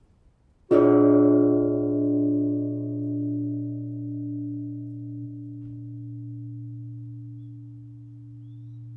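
Large Japanese temple bell (bonshō) struck once, about a second in, ringing with many overtones that sound a tense B♭7♯9 chord. The upper tones die away within a few seconds, while a low hum and a tone above it ring on, slowly wavering in loudness.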